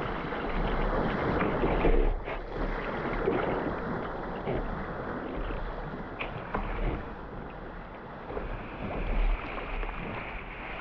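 Sea water splashing and lapping around a kayak being paddled, with wind buffeting the microphone in uneven gusts.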